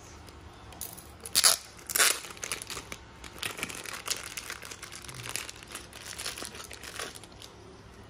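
Clear plastic wrap being peeled and torn off a Zippo lighter box, crinkling in a run of sharp crackles. The loudest crackles come about one and a half to two seconds in, and lighter crinkling goes on for several seconds after.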